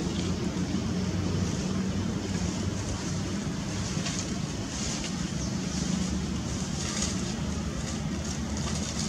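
Steady low rumble and hiss of wind on the microphone, with faint, brief rustles of dry leaves.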